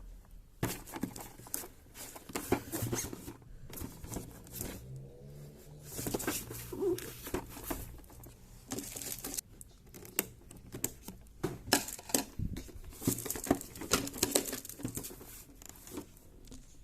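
Scattered small plastic clicks, taps and rustles of a Nendoroid figure and its plastic parts or packaging being handled, coming in short irregular clusters with brief pauses.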